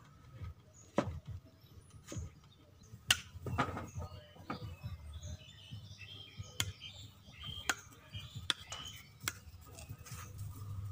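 Knife cutting food held in the hand, making a series of sharp separate clicks and knocks scattered through, with small birds chirping in the background.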